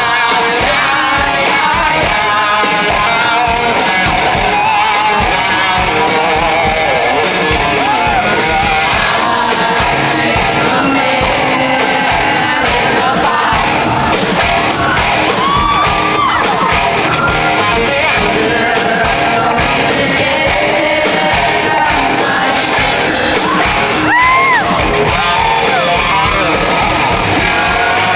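Live rock band playing loud with distorted electric guitar and drums, and a rough, shouted rock vocal, heard from the audience in a large hall.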